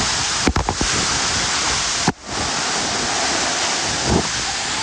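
A waterfall crashing close by with a loud, steady rush of water. There are a few short knocks about half a second in, and the sound drops out briefly just after two seconds.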